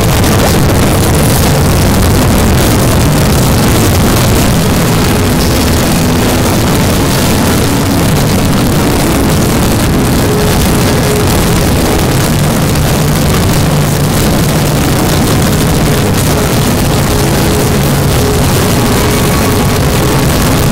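Loud, steady, distorted noise with a few faint held tones beneath it: many video soundtracks layered on top of one another into a single dense wash.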